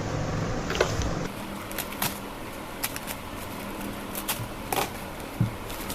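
Parcel packaging being handled and opened: a scattered series of sharp clicks and crinkles.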